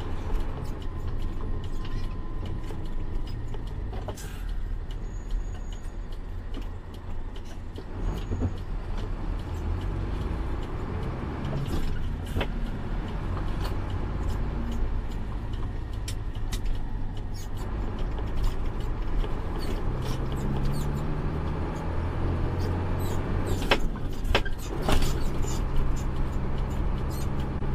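Truck engine running, heard from inside the cab as the truck turns and accelerates, its note climbing over the last several seconds. Scattered sharp knocks and rattles can be heard.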